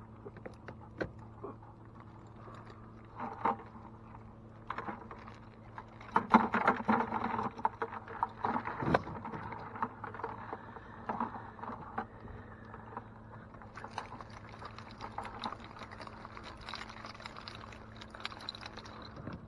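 Wire crab trap handled at the side of a small boat: scattered knocks and rattles of the wire mesh with water splashing and dripping, busiest from about six to eleven seconds in, over a low steady hum.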